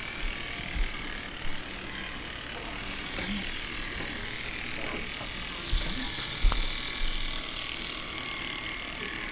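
Electric toothbrush buzzing steadily as it is held against a cat's teeth, with a few low knocks from the brush being handled.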